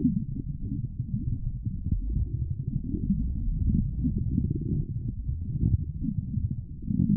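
Stomach growling: a continuous low, gurgling rumble that swells and fades irregularly, dipping briefly near the end.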